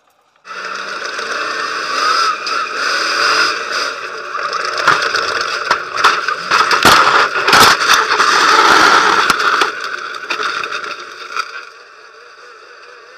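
Stadium Super Truck heard from inside the cab, engine running hard, then a run of heavy crashes and scraping metal from about five to eight seconds in as it piles into the overturned trucks after the gap jump. The engine noise dies away near the end as the truck stops in the wreckage.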